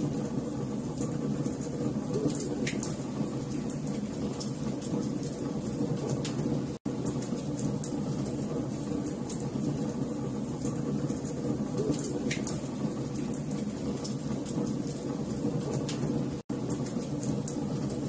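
Burning logs crackling, with sharp pops over a steady low rumble of flames. The sound cuts out for an instant twice.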